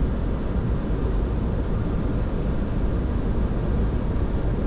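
Steady low rush of airflow and engine noise inside a Boeing 737-800 cockpit on final approach.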